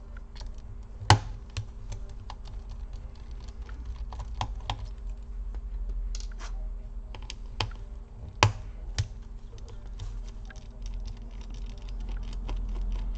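Small sharp clicks and taps of a precision screwdriver working the worn screws out of a laptop's heatsink, with two louder clicks about a second in and near the two-thirds mark. A steady low hum runs underneath.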